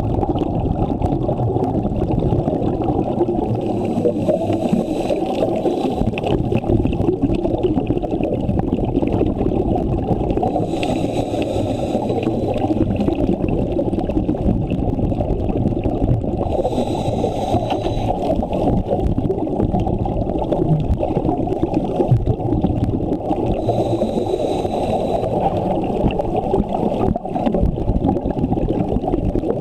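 Muffled underwater rumble picked up by a camera in its housing, with a scuba diver's regulator exhalation bubbles gurgling out in bursts four times, about every six or seven seconds.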